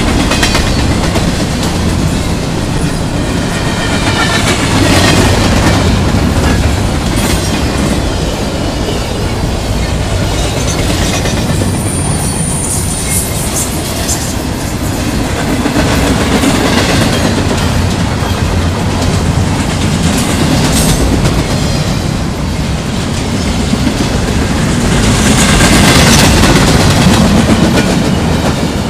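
Empty intermodal freight cars of a CSX train rolling past close by: a steady rumble and rattle with repeated wheel clacks. A brief high whine comes about twelve seconds in, and the passing gets louder near the end.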